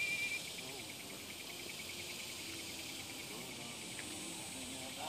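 Insects chirring: a steady high-pitched trill that soon breaks into a fast, even pulse of several beats a second, holding steady over faint outdoor background.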